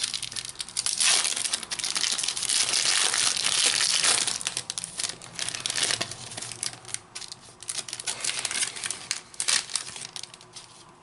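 Wrapper of a Topps Mega Match Attax trading card pack being torn open and crinkled in the hands. A dense run of crackling lasts the first few seconds, then scattered crinkles follow and thin out near the end.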